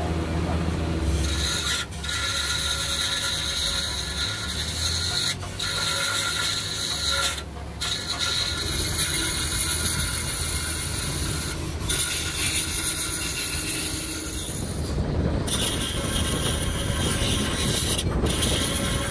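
Small high-speed grinder with a disc on a long extension shaft, running with a steady high-pitched whine as it grinds the cast iron of a tractor transmission housing. The sound drops out briefly several times. It turns rougher and grittier in the last few seconds as the disc bites into the metal.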